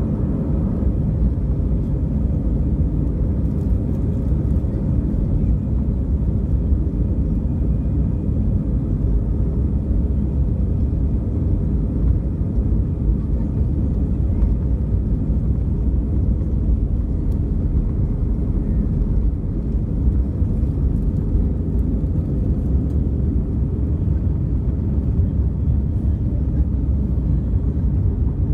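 Steady low rumble of engine and airflow noise inside the cabin of an Airbus A319 in flight, even in level throughout.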